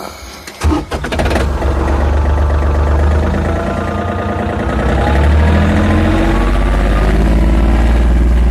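Tractor engine started with the key, catching within about a second and settling into a steady run. Partway through, a whine rises slowly in pitch as the engine speeds up.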